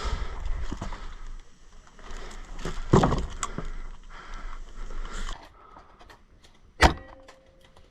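Rustling and scuffing handling noise with a louder scrape about three seconds in, then one sharp crack near the end.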